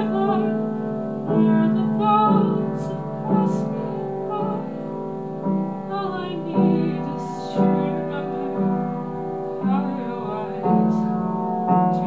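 A woman singing to her own upright piano accompaniment, the piano striking chords about once a second under the voice.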